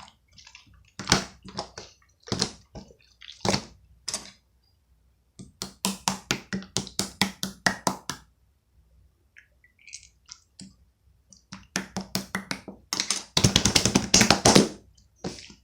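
Opaque slime being squished and pressed by hand, making short sticky clicks in separate bursts, with a quick run of clicks about halfway through and a dense crackling stretch near the end.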